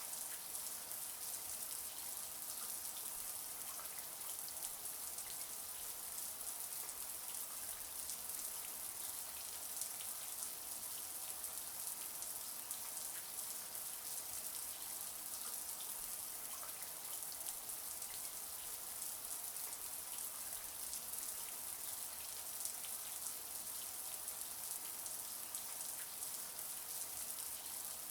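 Shower water spraying steadily: a dense, even hiss of falling water peppered with many small droplet ticks.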